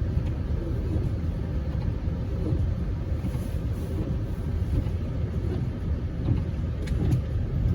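Steady low rumble of a Chevrolet Tahoe Z71 driving on a snowy road, heard from inside the cabin: road and tyre noise from its mud-terrain tyres. A couple of faint clicks come near the end.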